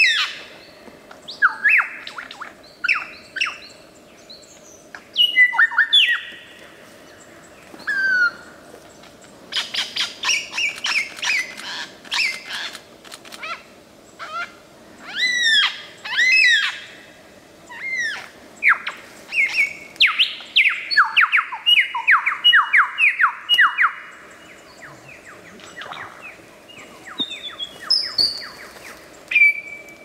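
Superb lyrebird singing a loud, varied song of whistles, sweeping calls and quick runs of notes, the mimicry-laden song the species is known for. About two-thirds of the way through comes a fast run of falling notes, then a held whistle.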